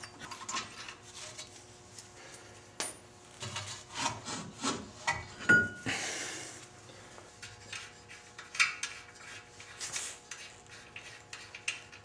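Front brake caliper of a 1989 Isuzu Trooper being worked free of its mount and retaining clips by gloved hands: irregular metal clicks, scrapes and knocks. The loudest is a sharp clank with a brief ring about five and a half seconds in, followed by a scraping slide as the caliper comes off.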